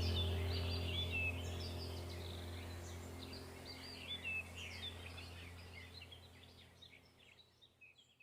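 Birds chirping and twittering over a steady low hum, the whole background track fading out gradually toward the end.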